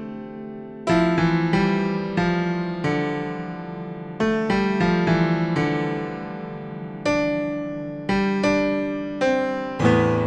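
Background music: a piano playing slow single notes and chords, each struck and left to ring and fade.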